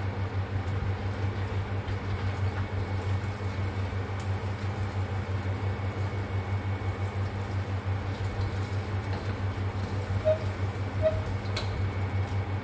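Wok cooking on a gas burner: a steady low hum under a soft even hiss as glutinous rice and giblets are stirred in a stainless steel wok, with two short light clinks about ten and eleven seconds in.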